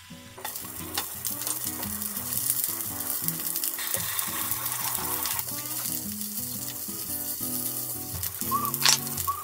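Skewered sausages sizzling in a frying pan. The sizzle starts about half a second in and runs on steadily, with a sharp tap near the end as chopsticks turn them in the pan.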